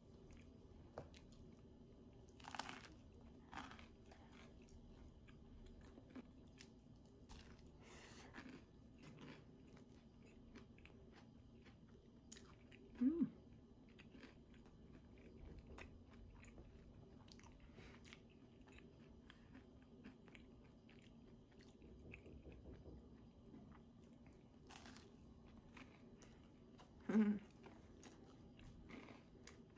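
A person biting into and chewing guacamole toast: faint crunches and small mouth clicks throughout, with two brief louder sounds about halfway through and near the end.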